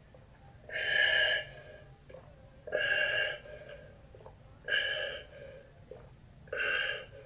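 Four breathy, voice-like sounds, each under a second long, about two seconds apart.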